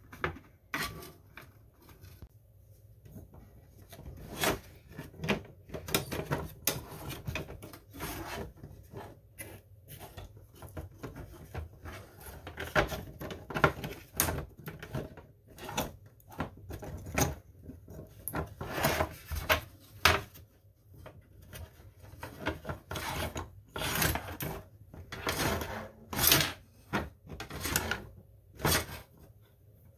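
3D-printed plastic wing rib and its Fowler flap linkage handled and worked by hand: irregular clicks, knocks and rubbing as the plastic parts move against one another and against the countertop.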